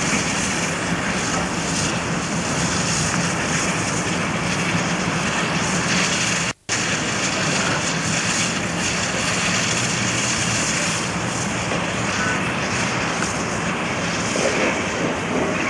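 Train running: a loud, steady, even roar with hiss, broken for an instant about six and a half seconds in.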